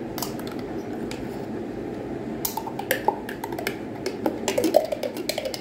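A spoon clicking and clinking against a jar and a bowl as mayonnaise is scooped out, with a cluster of quick clicks near the end. Under it runs the steady whir of a kitchen range hood fan.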